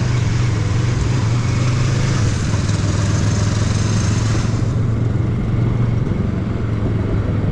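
Motorcycle engine running steadily while being ridden, with a hissing rush over it that drops away about two-thirds of the way through.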